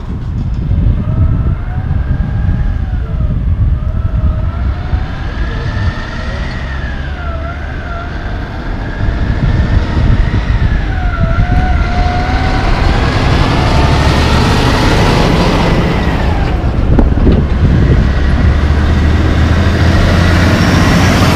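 Loaded diesel logging truck pulling away through an intersection and passing close, its engine rumble growing louder about halfway through and staying loud. Over it, a high whine rises and falls in pitch unevenly for most of the time, then stops a few seconds before the end.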